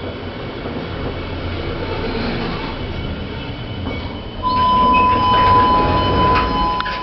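Schindler machine-room-less lift car travelling, a steady rumble with faint high whines. About four seconds in, a loud steady high tone starts suddenly and lasts a couple of seconds.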